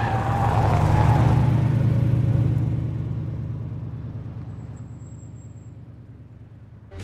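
An SUV drives past, its engine rumble and tyre noise swelling in the first two seconds, then fading steadily as it pulls away into the distance.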